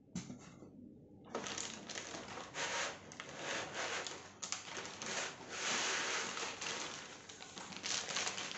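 Plastic bag crinkling and rustling against cardboard as a wrapped laptop is pulled out of its box: a dense run of small crackles that starts about a second in.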